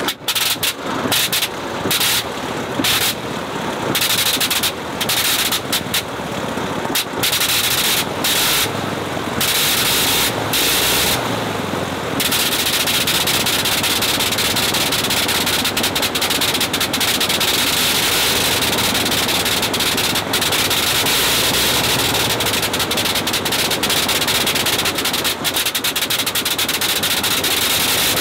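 Sopwith Pup's rotary engine starting after a hand-swung propeller: it fires in short bursts broken by repeated brief gaps for roughly the first twelve seconds, then settles into steady running.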